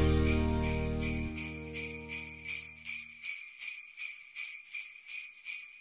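Jingle bells shaken in a steady rhythm, a bit over two shakes a second, while the last chord of the background music rings out and fades away about three seconds in.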